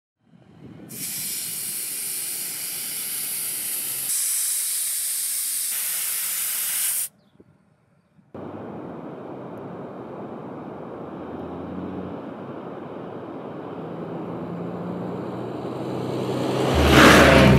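Compressed air hissing loudly at a four-wheel drive tyre's valve through an air hose for about six seconds, then cutting off. After a short pause, a steady rushing noise swells toward the end and ends in a loud burst.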